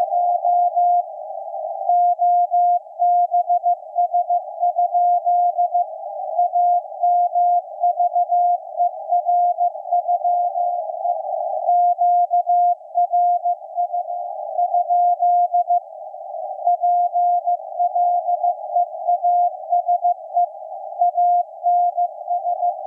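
Morse code (CW) from the maritime coast station KPH, received on shortwave at 12808.5 kHz: a single mid-pitched beep keyed on and off in dots and dashes, with short gaps between words, set in a narrow band of receiver hiss from the CW filter.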